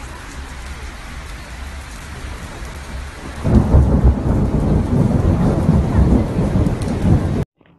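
Steady rain, then a loud rumble of thunder breaks in about three and a half seconds in and goes on until the sound cuts off abruptly near the end.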